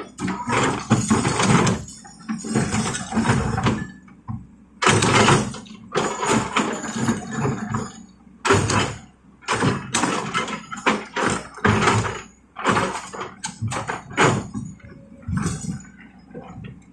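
Excavator at work with its diesel engine running steadily underneath, while rock scrapes and clatters in repeated, uneven bursts about every second.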